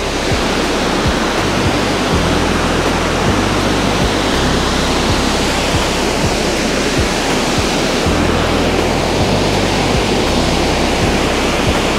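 Water pouring over a dam spillway: a loud, steady rushing roar.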